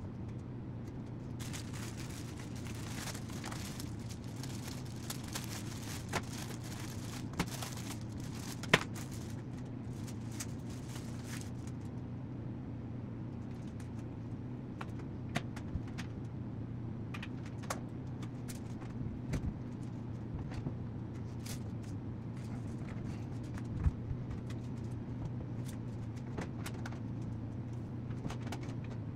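A steady low hum of room noise, with scattered clicks, taps and rustling from someone handling parts and plastic packaging while setting up a TV. Two sharper knocks stand out, one about a third of the way in and one a few seconds before the end.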